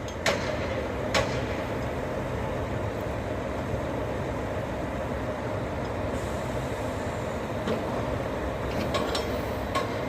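Concrete pump truck's diesel engine running steadily while the pump is being opened, with a few sharp metallic knocks.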